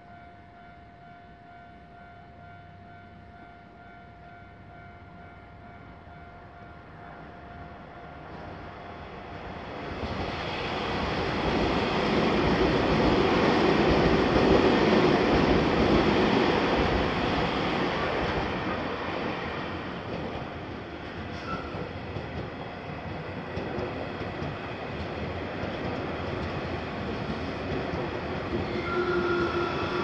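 Japanese level-crossing warning bell ringing steadily, then an electric Keio Inokashira Line commuter train approaches and passes, the rumble of its wheels on the rails loudest about halfway through. A second train passes near the end.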